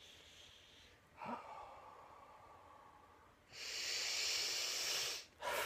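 A man taking slow, deep breaths to calm himself: a breath about a second in that fades away, then a longer, louder breath from about three and a half seconds, and another starting just before the end.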